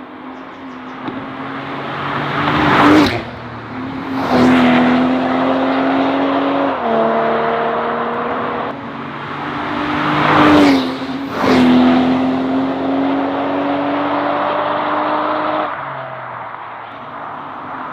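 BMW 840i's turbocharged inline-six running through an aftermarket turbo-back valved sport exhaust while the car accelerates. The engine note climbs steadily, drops suddenly at a gear change about seven seconds in, then climbs again. Two pairs of loud swells of exhaust noise come a few seconds in and again about ten seconds in.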